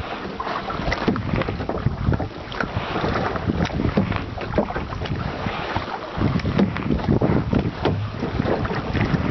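Wind buffeting the microphone with an uneven rumble, over irregular splashes and dribbles of water from kayak paddles dipping into the lake.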